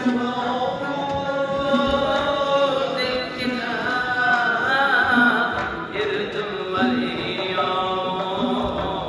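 Live traditional Uzbek song: a male voice singing a long, ornamented melody, accompanied by a plucked long-necked lute and a doira frame drum striking a slow, regular beat.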